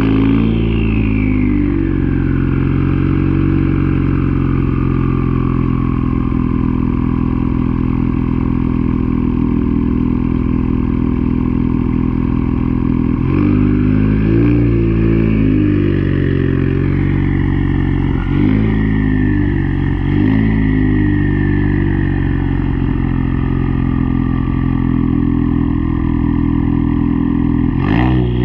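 2016 Ford Focus ST's turbocharged four-cylinder engine idling with a high whistle from the turbo that slowly falls in pitch over the first several seconds. About halfway through the throttle is blipped several times, and the whistle rises and wavers with the revs.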